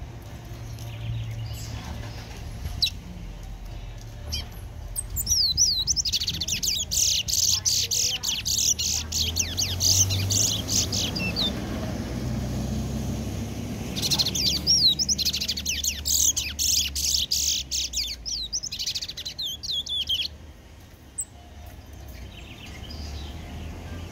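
Caged songbird singing in two long bouts of rapid, high twittering notes, the first about six seconds in and the second from about fourteen seconds in, each lasting around six seconds.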